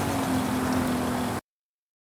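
Big turbocharged vehicle engine running, its tone falling slowly as it winds down, over a hissy rush of noise; the sound cuts off abruptly about one and a half seconds in.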